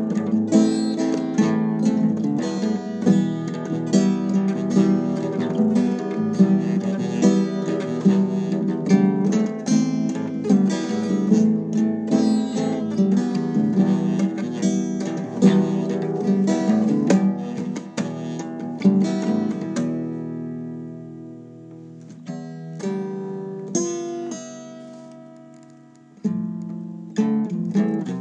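Acoustic guitar strummed steadily, with no singing. About two-thirds of the way through it thins to a few quieter, ringing single notes that die away, then strumming starts again loudly near the end.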